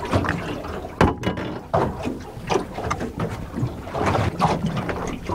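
Choppy sea slapping irregularly against a small boat's hull, with wind on the microphone.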